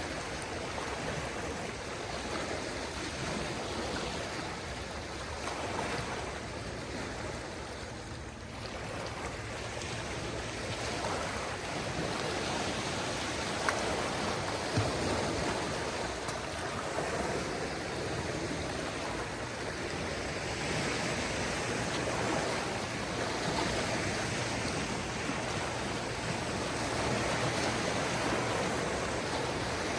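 Small waves of a calm sea washing onto the shore: a steady rush of water that swells and eases slowly. Two brief clicks come a little before halfway.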